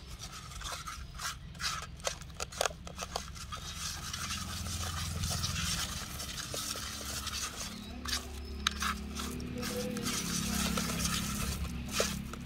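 A hand mixing a wet masala of grated coconut, egg and spice powders in a clay pot: fingers rubbing and scraping the paste against the pot's bottom. Scattered light clicks come mostly in the first few seconds.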